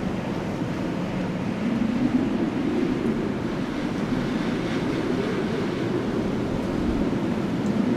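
Strong winter wind blowing as a steady, deep rush of noise that swells slightly in gusts, about two seconds in and again around five seconds.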